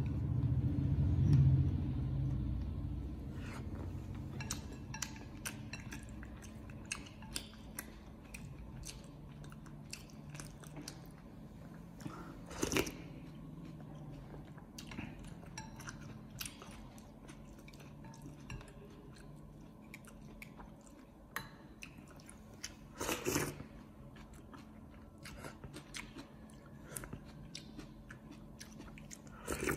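Close-up sounds of someone eating noodle soup: chewing, with many small clicks and clinks of wooden chopsticks and a metal spoon against a ceramic bowl. A louder low rumble comes in the first couple of seconds.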